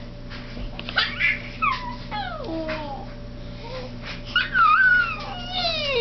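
A baby's high-pitched squeals and coos, several sliding downward in pitch, the last one drawn out, while the stiff laminated sheet in its hands gives short taps and rustles.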